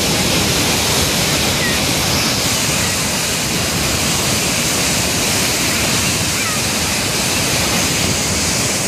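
Dam outlet tube discharging about 21,400 cubic feet per second: a steady, loud rush of churning, spraying water boiling up into the outlet basin.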